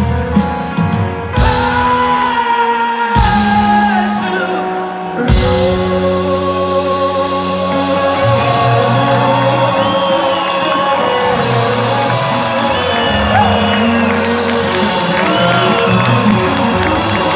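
Rock band playing live in a large hall: electric guitars, bass, drums and keyboard. A sparser passage of held low notes gives way to the full band about five seconds in, after a sharp drum hit.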